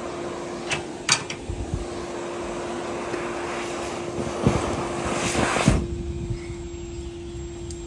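Clothes dryer's exhaust blower running behind a lint-clogged wall vent: a steady hum with rushing air and a few small clicks. About four and a half seconds in a louder rush of noise builds as the lint plug is pulled out of the vent hood, and it cuts off sharply just before six seconds.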